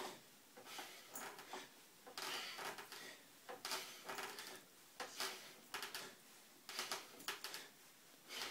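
Faint sounds of a man doing pull-ups on a doorway pull-up bar: a short noisy burst about every second and a half, with light clicks and knocks between.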